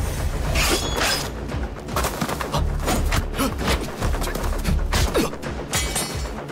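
Fight-scene soundtrack: dramatic music with a low drone under a quick run of sword and combat sound effects. A blade is drawn from its scabbard near the start, followed by swishes and hits.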